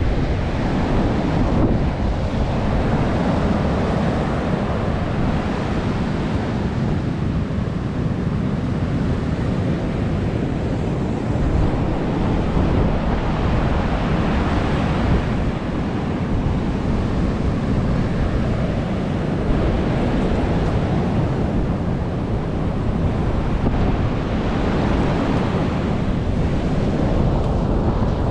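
Strong wind buffeting the microphone over ocean surf breaking on the beach: a loud, steady rush that swells and eases gently.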